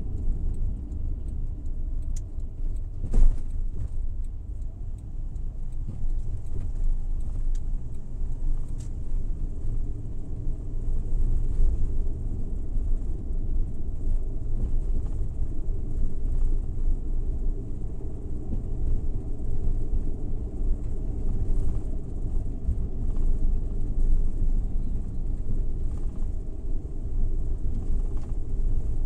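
Suzuki Every Wagon kei van with its 660 cc three-cylinder engine driving along: a steady low rumble of engine and road noise. A single sharp knock about three seconds in.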